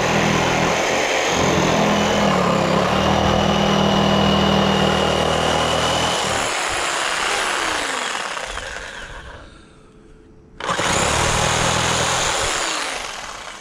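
A loud motor running steadily, winding down with falling pitch over a few seconds to a low level, then revving back up sharply about two-thirds of the way through and winding down again near the end.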